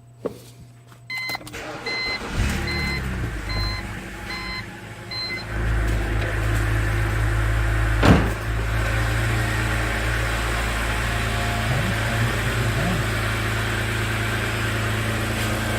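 BMW Z4 being started: a run of short chime beeps, then the engine catches about five seconds in and idles steadily. A single sharp knock comes about eight seconds in.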